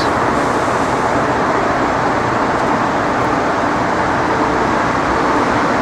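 Steady city street traffic noise, an even, unbroken rush of passing vehicles, with a faint steady hum joining about four seconds in.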